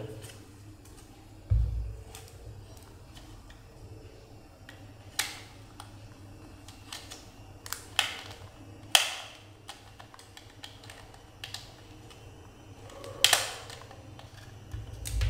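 Scattered clicks and taps of hard plastic as a small Wi-Fi security camera's casing is handled and its side cover pulled loose, with a dull knock about one and a half seconds in and the sharpest clicks about nine and thirteen seconds in.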